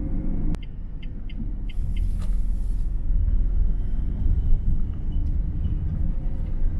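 Renault Master van running on the road, heard from inside the cab as a steady low engine and road rumble. A sharp click comes about half a second in, followed by a few light ticks.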